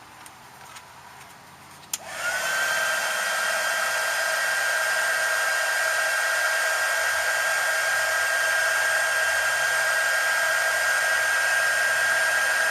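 Heat gun switched on with a click about two seconds in, its fan spinning up to a steady blowing rush with a high whine, used to shrink heat-shrink tubing over a soldered wire joint.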